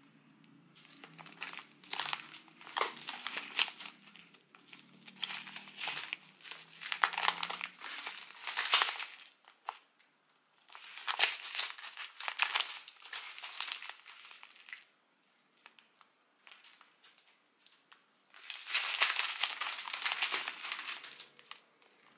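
Thin clear plastic bags of resin diamond-painting drills crinkling as they are handled and turned over in the hands, in four bursts of a few seconds each with short pauses between.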